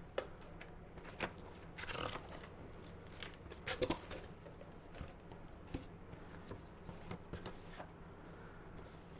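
Packaging being handled during an unboxing: scattered light clicks and taps with short rustles, the loudest a brief rustle about two seconds in and a cluster of sharp clicks near four seconds.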